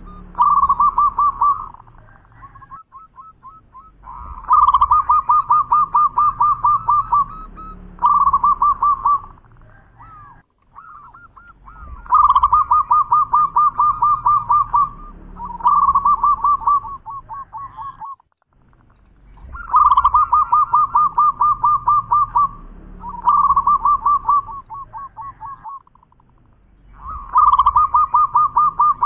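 Zebra dove (perkutut) cooing: phrases of rapid staccato coo notes, each a longer run followed by a shorter one, repeated about every seven to eight seconds with short pauses between.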